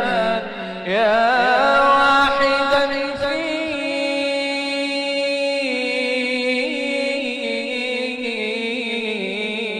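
Unaccompanied voice chanting an Islamic ibtihal, stretching a single syllable into long wavering melismatic runs, then settling onto a long steady held note.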